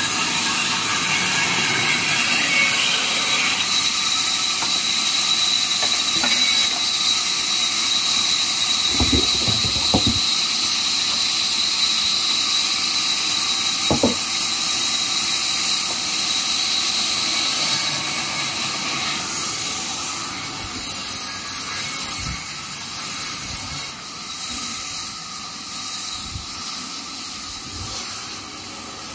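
Large vertical band saw running and cutting timber: a steady hissing whine with a high tone, broken by a few knocks of wood being handled. It grows quieter in the last third.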